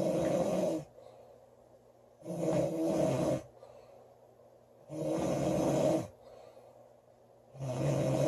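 A woman snoring loudly in sleep. There is a snore about every two and a half seconds, each lasting about a second, with much quieter breathing between them.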